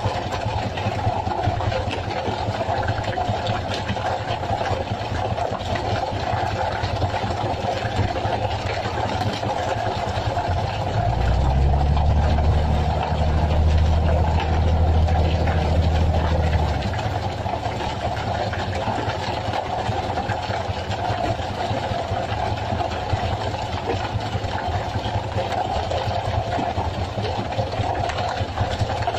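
Engine running steadily, with a deeper, louder hum swelling in for several seconds around the middle.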